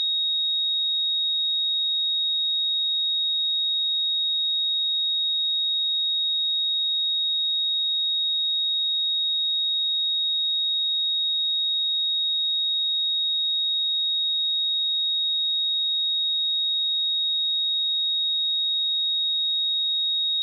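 A single steady 3761 Hz sine-wave test tone, a pure high-pitched whistle held at a constant level.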